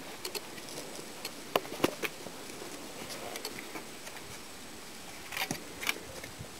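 Dogs nosing and biting at fallen apples on the ground: scattered sharp clicks and crunches, a few about one and a half to two seconds in and another cluster near the end, over a steady background hiss.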